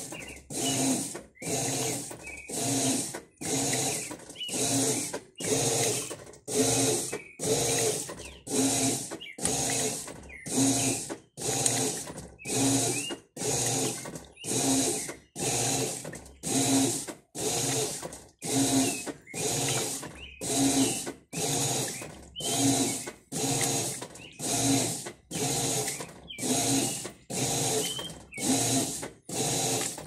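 Electrolux 12 kg top-loading washing machine agitating a load of clothes in water: the agitator motor whirs and the water sloshes in regular strokes, about one a second, with a short pause between each.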